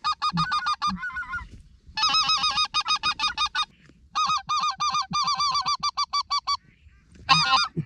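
Specklebelly (white-fronted goose) call blown in fast, rhythmic runs of high yodeling notes, about six a second. Three long runs with short breaks, then a short, loud burst near the end, calling to incoming specks.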